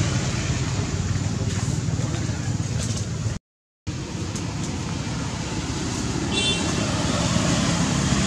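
Steady outdoor road-traffic noise that drops out to dead silence for half a second near the middle, with one brief high squeak about six seconds in.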